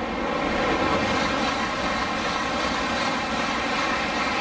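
N700-series Tokaido Shinkansen train passing through the station at high speed on the non-stop track, its rushing noise swelling over the first second and then holding steady.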